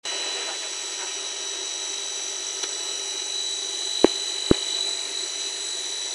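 PVC WPC board extrusion line running: a steady machine drone with a high, even whine. Two sharp knocks, half a second apart, about four seconds in.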